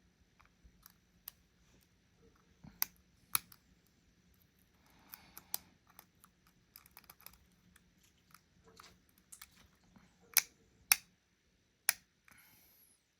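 Lock pick and tension wrench working in a challenge lock's keyway: a scatter of small metallic ticks and scrapes, with a sharp pair of clicks early on and three louder sharp clicks near the end.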